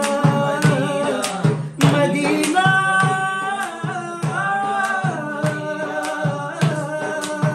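Men's voices singing a madh, a devotional song in praise of the Prophet, together over a steady drum beat.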